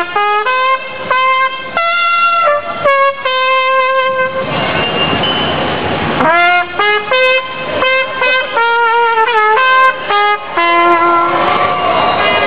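A trumpet playing a tune of separate held notes that step up and down in pitch, with a brief noisy stretch without notes about five seconds in.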